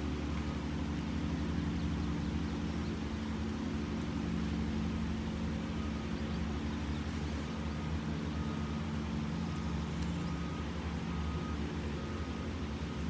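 A steady low mechanical drone, even in level throughout.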